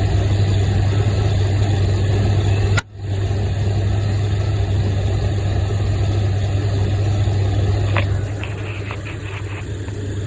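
A vehicle engine idling steadily, with a brief dropout about three seconds in. A few light clicks come near the end.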